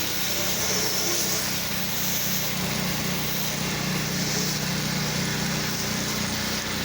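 Pressure washer's engine running steadily, with the steady hiss of the wand spraying cleaning solution through a fan tip.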